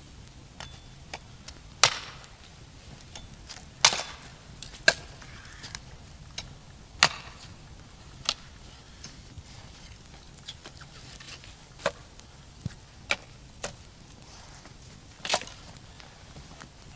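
Wood being chopped: about ten sharp, irregularly spaced strikes, the loudest in the first half.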